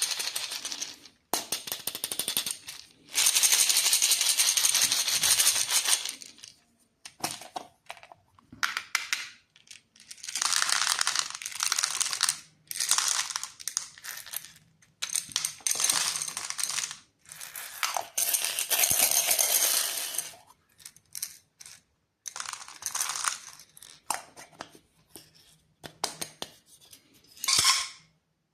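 Plastic candy wrappers crinkling and tearing as sweets are unwrapped, in bursts of a few seconds with small clicks and taps between.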